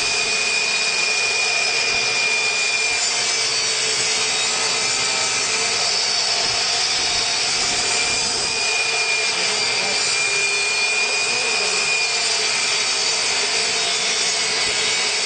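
Power saw cutting cement backer board, running steadily with a constant whine over the rasp of the cut.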